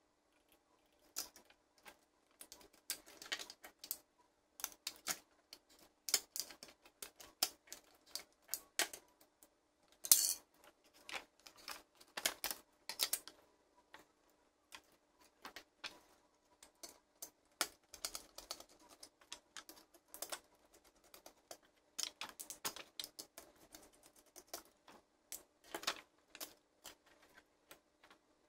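Plastic toy parts and small metal pieces being handled and set down on a wooden table: irregular light clicks and taps, with one louder knock just after ten seconds in, over a faint steady hum.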